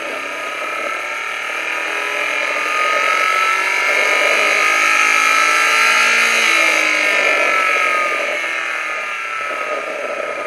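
Recorded knock-sensor signal from a Nissan S13's CA18 engine, played through speakers: the engine's mechanical and valve-train noise as the sensor picks it up, rising in pitch as the engine climbs through the rev range under load, then falling over the last few seconds. It is the knock-free baseline, with no detonation in it.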